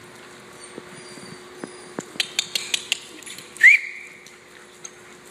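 Dogs' claws clicking in a quick run of sharp ticks on a hard playroom floor, followed about three and a half seconds in by one short, high squeal that rises in pitch and then holds.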